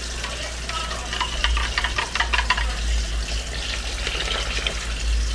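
Broth in a large aluminium stockpot of Salisbury steak patties crackling and splashing, busiest in the first few seconds, over a steady low hum.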